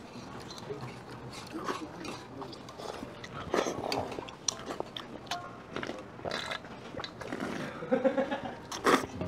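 Eating noises at a table: metal chopsticks clicking against metal noodle bowls, with mouth sounds of chewing and slurping cold naengmyeon noodles. A louder slurp comes near the end.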